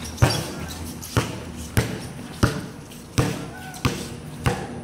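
Basketball dribbled on a concrete court: about seven sharp bounces, one every two-thirds of a second or so.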